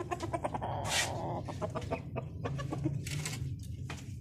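Bantam and silkie-cross bantam chickens clucking in short, repeated calls, with a brief hiss-like rustle about a second in.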